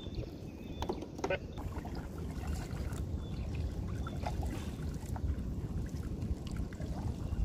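Kayak paddle strokes dipping and splashing in calm water as a sit-on-top fishing kayak is paddled along, over a steady low rumble.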